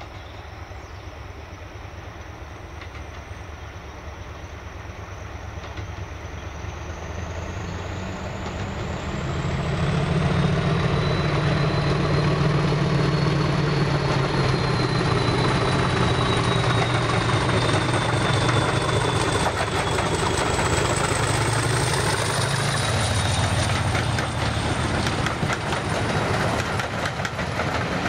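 BR Class 40 diesel locomotive with its English Electric 16-cylinder engine hauling coaches past, growing louder as it approaches, the engine's low hum topped by the class's high turbocharger whistle. The coaches' wheels click over the rail joints in the later part.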